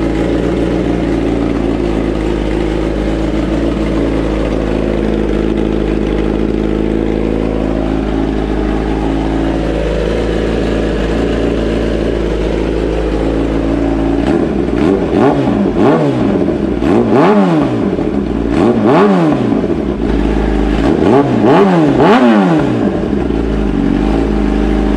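Kawasaki ZX-10R inline-four idling steadily through a full titanium Racefit slip-on exhaust with the catalytic converter removed, then revved in several quick throttle blips over the second half.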